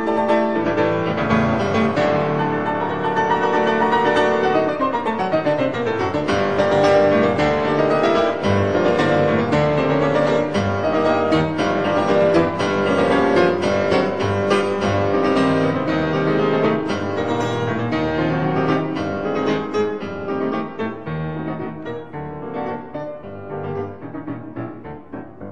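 Piano music with many quickly struck notes and a sweeping downward run about five seconds in, growing a little quieter near the end.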